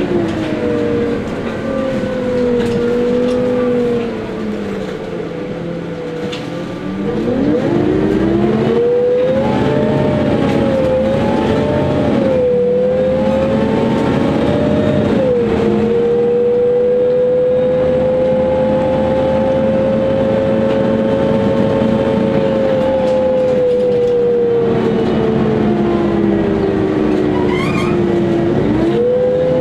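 Mercedes-Benz Citaro O 530 CNG city bus heard from inside the passenger cabin. The natural-gas engine's note falls and quietens as the bus slows, then climbs sharply as it pulls away about seven seconds in. It drops with a gear change, holds steady at cruising speed, and eases off again near the end.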